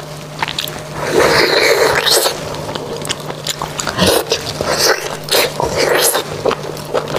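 Close-miked eating sounds of someone sucking marrow out of a sauced beef bone: a drawn-out sucking sound about a second in, then wet smacking and chewing clicks.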